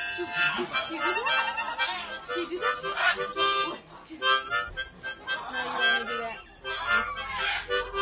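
Harmonica being played: a tune of held notes and chords, broken by short gaps between phrases.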